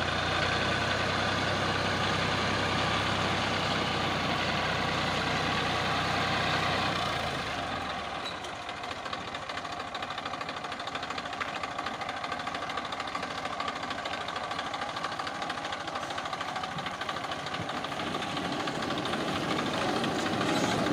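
Massey Ferguson 1035 DI tractor's three-cylinder diesel engine running as it drives, pulling a loaded trailer. It is steady and strong for about the first seven seconds, then drops quieter and grows louder again near the end as the tractor comes down the slope toward the microphone.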